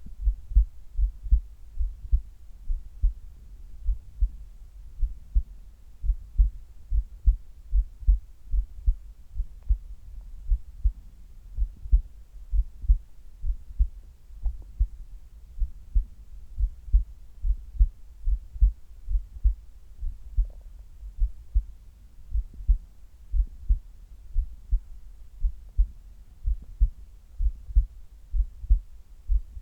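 A human heartbeat heard close up from the chest during sit-up exercise: a steady, regular rhythm of low paired lub-dub thumps. A few faint ticks are heard about a third and two-thirds of the way through.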